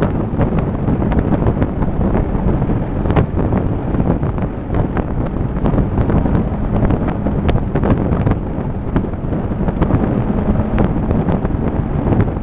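Off-road vehicle driving on a rough, dusty dirt road, heard from inside the cab: a steady engine and tyre rumble with frequent short knocks and rattles.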